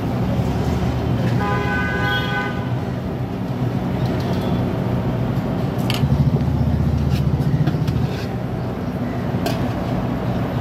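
Street traffic runs steadily throughout. A vehicle horn honks for about a second, starting a little over a second in. A heavier engine rumbles past around the middle, with a few sharp clinks between.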